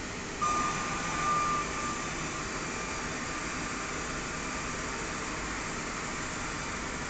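Band saw with its wood feeding machine running with a steady mechanical noise. About half a second in, the sound gets louder and a high whine rings for about a second and a half before settling back into the steady running noise.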